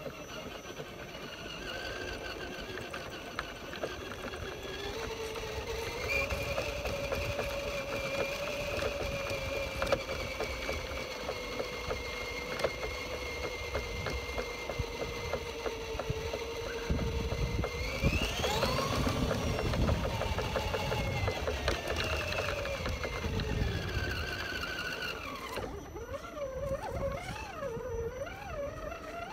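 Axial RC Jeep Rubicon's electric motor and gears whining as it drives. The whine holds a steady pitch, climbs sharply a little past halfway, then slides back down over a few seconds, with a low rumble of the wheels over the ground. Near the end the pitch wavers up and down with the throttle.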